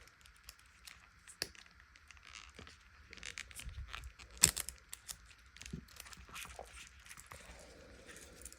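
Rustling and crinkling of packaging handled by hand, with scattered small clicks and one sharp click about halfway through.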